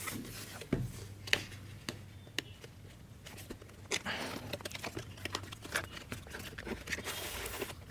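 A product box being opened and handled by hand: scattered light clicks and taps, with a soft sliding rustle near the end.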